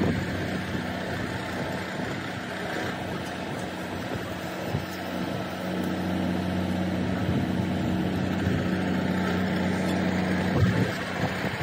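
Truck-mounted borewell drilling rig running, its engine and hydraulics droning steadily and growing a little louder about halfway through, with a brief knock about five seconds in.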